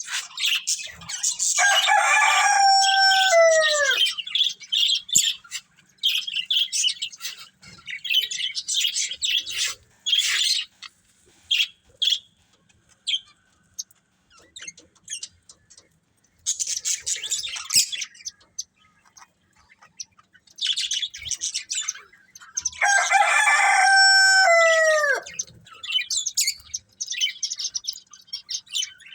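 Budgies chirping and twittering in quick, busy bursts, with gaps of quiet. Twice, about two seconds in and again near the end, a louder call of about two seconds rings out, falling in pitch at its end.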